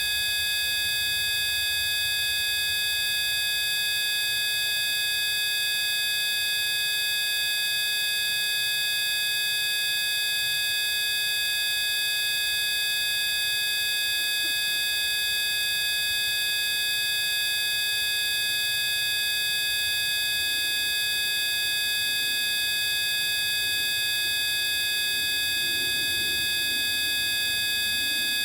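Many steady electronic pure tones at fixed pitches, low to very high, sounding together as one unchanging chord, with a faint low noise beneath.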